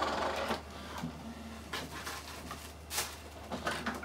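Epson XP-6000 inkjet printer mechanism running with a rapid, even ticking that stops about half a second in, followed by a few scattered short clicks and knocks.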